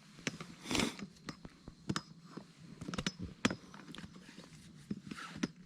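Footsteps crunching on snow, an uneven series of sharp crunches about one every half second or so, with a longer scrunch about a second in.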